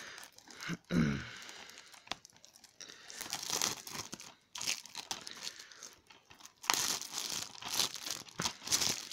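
Cellophane shrink-wrap being torn and peeled off a DVD case, crinkling in several bursts, then crumpled in the hand. A short downward-gliding sound comes about a second in.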